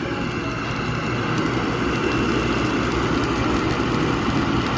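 Black+Decker electric blower running steadily, its motor whine and rushing air blown into a charcoal barbecue grill to get the coals going.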